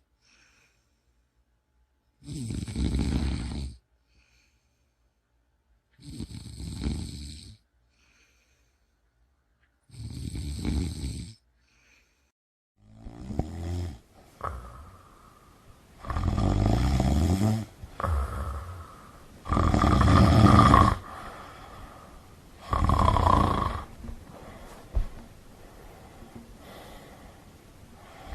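A person snoring: one snore about every four seconds, with quiet between them. From about halfway the snores get louder and rougher, about every three seconds, over a steady background hiss.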